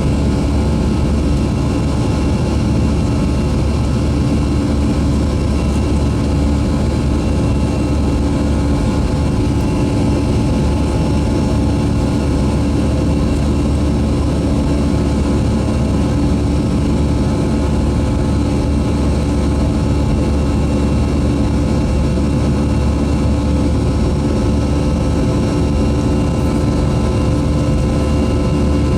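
Boeing 737-300's CFM56-3 turbofan engines running at a steady power: a constant low rumble with several steady tones above it, unchanging throughout.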